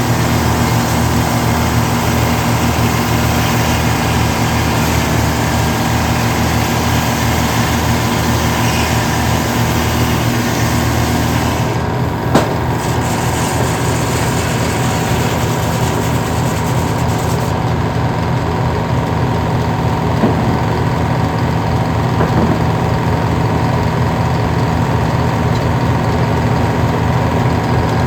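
Engine running steadily, its pitch holding even, with a sharp click about twelve seconds in.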